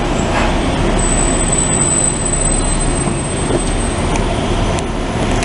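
Steady, loud low rumble of a heavy vehicle engine running, with a thin high-pitched whine that starts about a second in and fades out a couple of seconds later.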